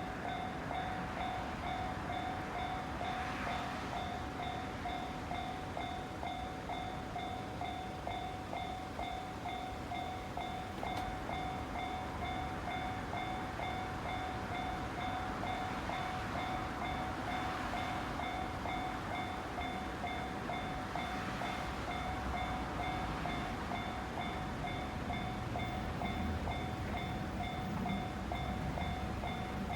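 Japanese railway level-crossing warning bell ringing continuously in an even, rapid rhythm, over a low rumble that grows a little near the end.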